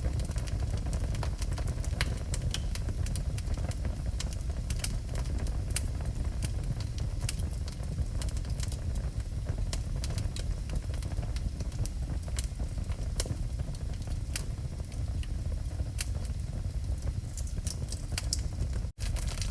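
Wood fire burning in a fireplace: a steady low rumble of the flames with scattered sharp crackles and pops from the burning logs. The sound cuts out for a split second near the end.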